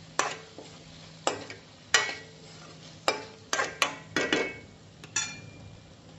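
Stirring cubed raw banana curry in a metal pan: the utensil scrapes through the thick masala and knocks against the pan about nine times at uneven intervals, some knocks ringing briefly, over a low steady hum.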